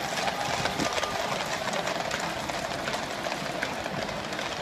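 Hooves of a column of Household Cavalry horses on the road, a dense, steady patter of many overlapping clip-clops.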